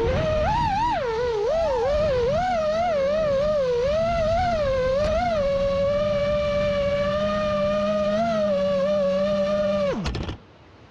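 6S FPV quadcopter's motors and propellers whining, the pitch wavering up and down with the throttle and then holding steady. Near the end the pitch drops sharply and the sound cuts off.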